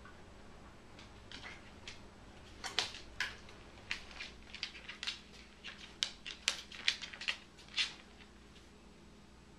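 A corgi's claws clicking and tapping on a hardwood floor as the dog walks and turns about: a run of sharp, irregular ticks that starts about a second in, comes thickest in the middle, and stops near the end.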